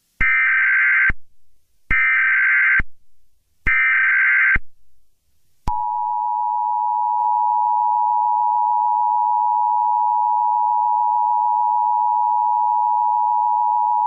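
Emergency Alert System SAME header: three short bursts of digital data screech, about a second each, then the two-tone attention signal held steadily for about eight seconds. Together they mark the start of an emergency broadcast, here a tornado warning.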